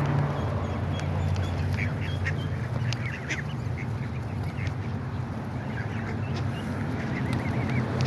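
A flock of ducks quacking with geese calling among them: many short, overlapping calls over a steady low hum.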